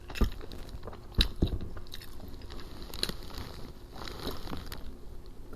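Close-up chewing and biting of crunchy fried food, with several sharp crunches about a quarter second in, near one and a half seconds and around three seconds.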